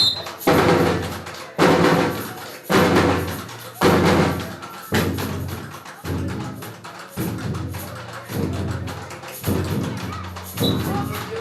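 Background music with a heavy, steady drum beat, about one hit a second.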